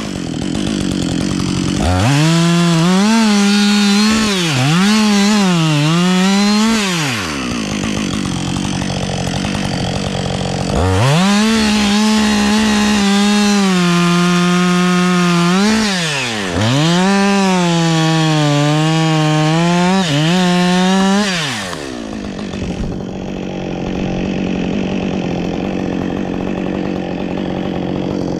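Gas chainsaw revving to full throttle and cutting oak wood in two long cuts, its pitch dipping and recovering as the chain bogs under load. Between the cuts and near the end it eases off to a lower, rougher running.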